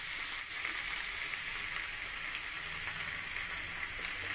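Chopped corn, capsicum and carrot sizzling steadily in hot oil in a frying pan as they sauté.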